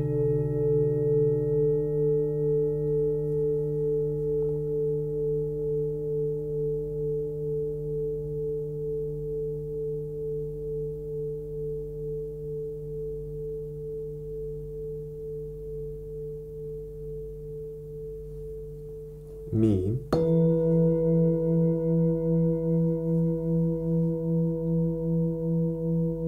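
Hammered Tibetan singing bowls struck one at a time with a felt mallet. The first bowl rings long, its tone wavering and slowly fading. About twenty seconds in, a second, slightly higher-pitched bowl is struck and rings with a stronger pulsing waver.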